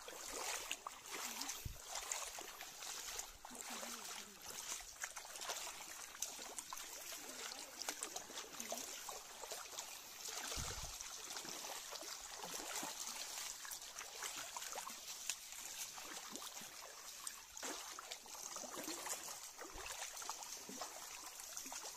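Water trickling over stones in a shallow stream, with a few brief low thumps.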